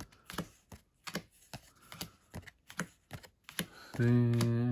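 Pokémon trading cards being flicked through by hand, each card snapping against the stack as it is moved to the back, about three to four crisp clicks a second. Near the end a man's voice comes in with one long held sound, louder than the cards.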